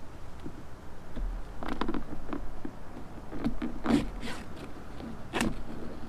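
Handling noises: several short scrapes and knocks, with a sharper one about four seconds in and another near the end.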